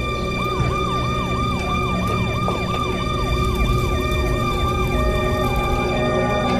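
Emergency-vehicle siren in a fast yelp, its pitch sweeping down and back up about three times a second, over a steady held tone and a low rumble.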